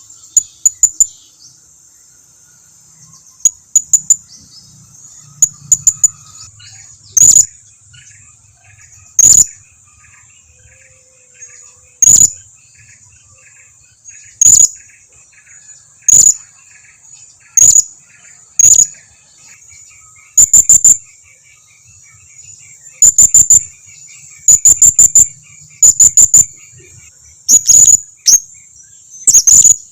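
Blue-crowned hanging parrot (serindit) giving loud, sharp, very high-pitched calls, singly or in quick runs of two to four, every second or two. A steady high insect hiss and a fainter fast chirping run underneath.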